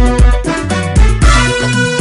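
Somali song, instrumental passage: a steady beat with strong bass hits falling in pairs about once a second, under melodic instrument lines, no singing.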